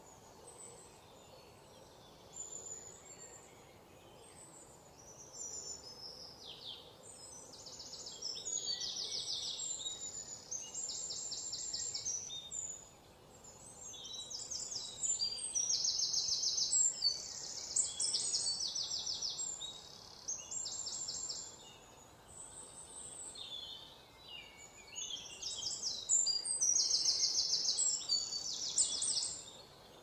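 Small songbirds singing: rapid high-pitched trills and chirps in phrases with short pauses between them, busiest in the second half.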